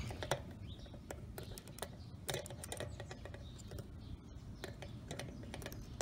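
Scattered small metal clicks and ticks of needle-nose pliers gripping and working the needle valve stem out of an OMC 6-gallon fuel tank's connector port.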